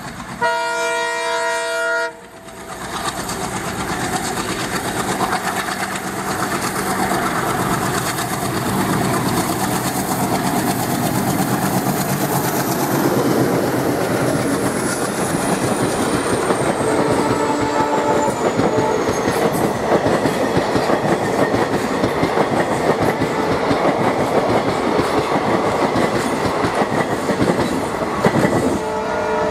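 WDM3D diesel locomotive hauling a parcel train: a short chord of horn that cuts off sharply, then the engine and the wheels clattering over the rail joints as the train approaches and runs past at speed. A high whine falls in pitch as the locomotive goes by, and the horn sounds again near the end.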